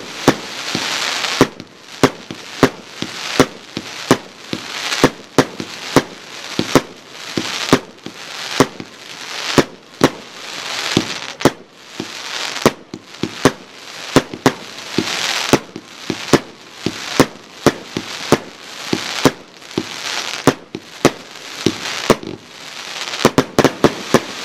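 Royal Fireworks Ano's Heaven Four fireworks cake firing shot after shot: a rapid series of sharp bangs as the shells burst, each trailed by the crackling fizz of the stars. There is a quick flurry of bangs near the end.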